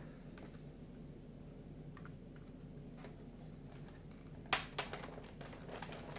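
Faint handling of card 3D-puzzle pieces, with a sharp click about four and a half seconds in and a smaller one just after as a section is pushed into place on the model. A steady low hum runs underneath.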